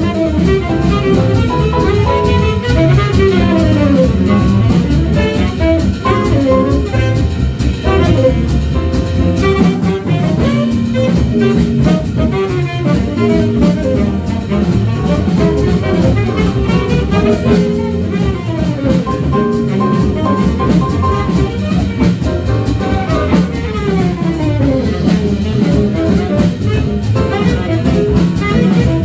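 Live jazz ensemble playing, with a saxophone line over a drum kit.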